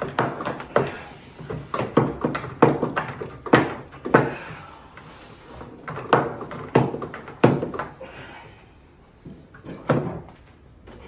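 A run of irregular knocks and thumps as white aquarium sand is handled and poured into the tank. They come thick for the first eight seconds, then ease off, with one more knock a couple of seconds later.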